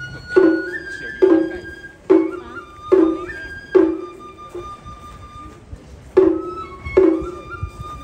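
Edo bayashi festival music: a shinobue bamboo flute plays a high melody in held notes that step up and down in pitch, over sharp, ringing taiko drum strikes about every 0.8 seconds, with a break in the drumming near the middle.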